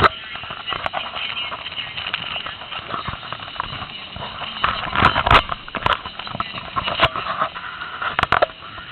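AC TIG welding arc on aluminum, unpulsed, crackling irregularly with sharp pops, the loudest clusters about five seconds in and again near the end.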